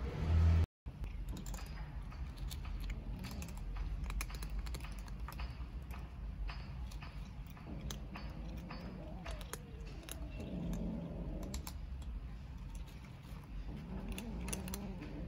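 Several cats crunching dry kibble: a steady run of small sharp crunches and clicks. A brief low thump comes in the first second.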